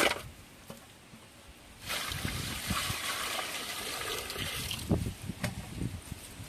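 Water poured and splashing over cut fish pieces as they are rinsed in a vessel, starting about two seconds in and running for about three seconds, followed by a few short knocks.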